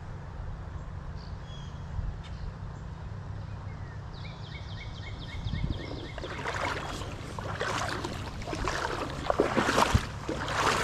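Steady low rumble of highway traffic, with a short bird trill about four seconds in. From about six seconds on come irregular splashing and rustling in shallow creek water as a small smallmouth bass is hooked and brought in.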